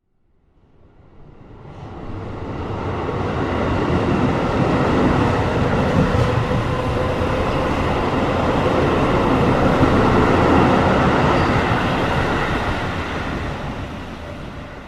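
A train rolling along the rails, a steady rumble that swells over the first few seconds, holds, and fades away near the end.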